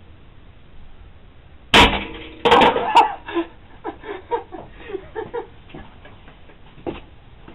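A single sharp shot from a .177 pellet rifle, then a quick cluster of clattering knocks as the hit butane lighter is knocked off its perch. Smaller knocks and rattles follow for a couple of seconds.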